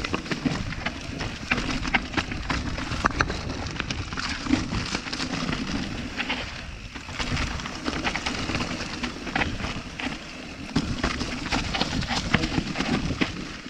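Mountain bike descending a rough singletrack: tyres rolling over rock and dirt, with constant rattling clicks and knocks from the bike over the bumps.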